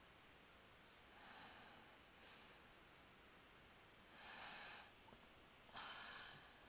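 Near silence with about four faint breaths through the nose, each about half a second long, close to the microphone.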